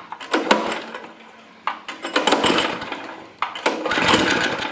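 Harbor Freight Predator small gasoline engine being pull-started by its recoil starter: a few rattling pulls, then it sputters and catches about two seconds in, running louder and steadily near the end. The engine had been flooding its cylinder with fuel.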